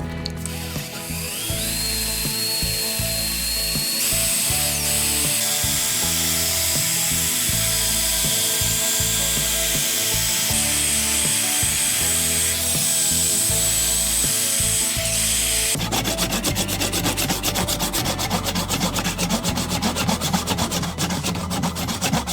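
A small power tool spins up and runs steadily, then about two-thirds of the way through gives way to fast back-and-forth rubbing strokes, like sanding or rasping, with music underneath.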